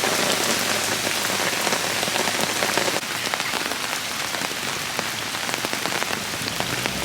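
Heavy rain falling: a steady hiss dense with the patter of individual drops, easing slightly about three seconds in.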